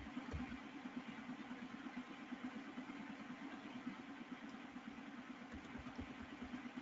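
Faint steady low hum with a hiss over it, the background noise of an open microphone, with a few soft low knocks.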